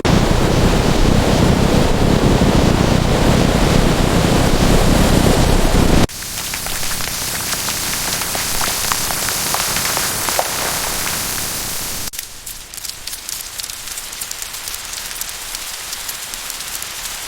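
Rain in three abruptly changing stretches: a loud, heavy downpour for about six seconds, then suddenly a softer rain with single drops splashing, and from about twelve seconds in a quieter patter of fine drops.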